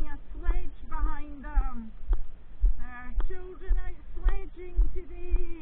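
A woman singing a tune with held and sliding notes, over low thuds of footsteps about twice a second.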